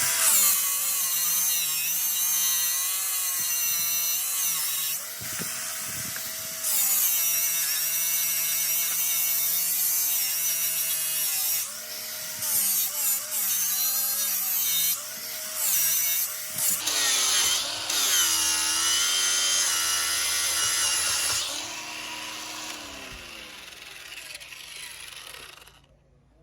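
Small high-speed rotary power tool working the surface of an aluminium engine case. Its whine wavers in pitch as it bears on the metal. It stops briefly about five seconds in, cuts in and out several times in the middle, and winds down near the end.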